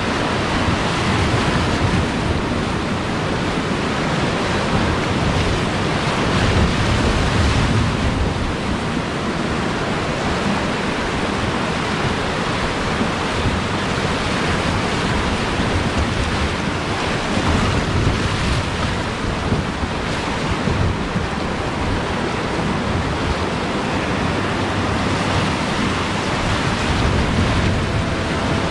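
Whitewater rapids rushing and splashing around the bow of an inflatable raft running through them: a loud, steady rush of water.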